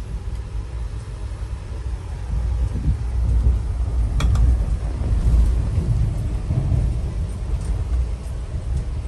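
Low, steady rumble of a moving vehicle, growing louder toward the middle, with one sharp click about four seconds in.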